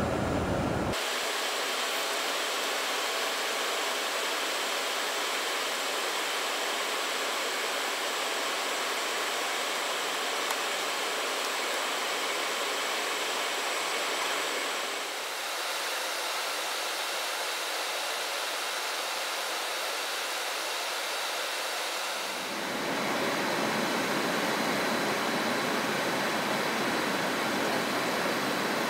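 Steady rush of airflow and engine noise on the flight deck of a Boeing 747-400 in descent. A low rumble fills in about 22 seconds in.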